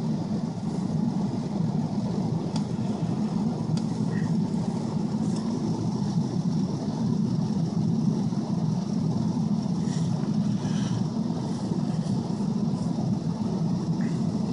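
2002 Ford F-250 pickup's engine running steadily, heard from inside the cab, with a low, even hum and a few faint ticks.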